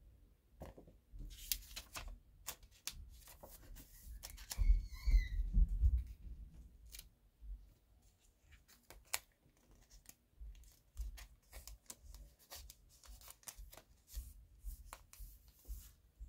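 Glossy photo prints being handled and shuffled on a table: scattered crisp paper clicks and rustles, with a few soft low bumps of handling about five seconds in.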